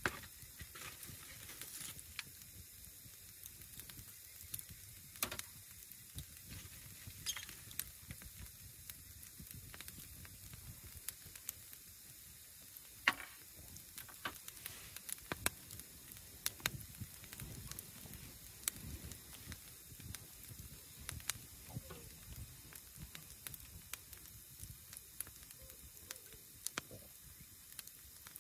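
Split logs burning in an open wood fire, crackling with irregular sharp pops and one louder pop about halfway through.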